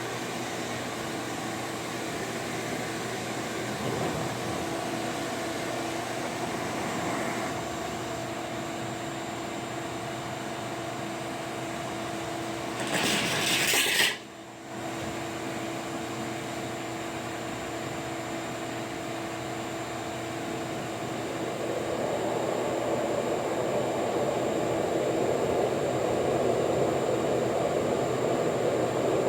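Vacuum cleaner running on blow, a steady motor whine with rushing air, forced into a car's HVAC blend box. About 13 seconds in there is a brief loud hiss, and from about 22 seconds the air rush grows louder.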